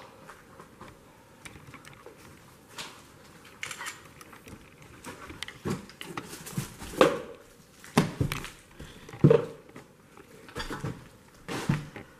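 Slow footsteps crunching and scuffing over debris on a hard floor, with scattered clicks and knocks that grow louder and come about once a second from about halfway.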